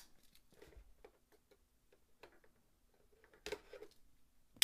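Faint clicks, taps and light scratching of a pocketknife working at a small cardboard processor box, with a couple of sharper clicks near the end.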